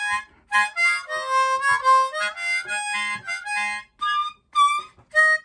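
Easttop ten-hole diatonic harmonica in the key of Ab, played acoustically in cupped hands: a phrase of short detached notes and held chords. Near the end come a few short separate notes, some of them bent in pitch.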